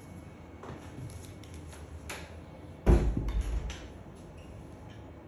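Light clicks and taps of dishes and kitchen tongs handled on a plastic-covered table, with one loud thump about three seconds in.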